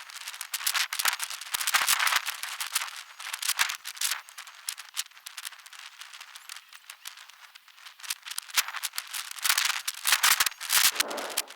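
Football goal net being handled and pulled onto the frame: irregular rustling and rattling crackles, busier at the start and again near the end.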